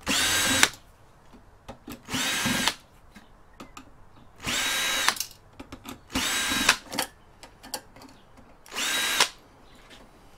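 Power drill-driver backing out case screws in five short runs of steady whine, about two seconds apart, with small clicks between runs.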